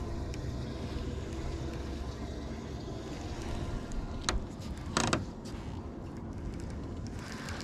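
Steady low wind-and-water noise, with a short click about four seconds in and a louder knock just after.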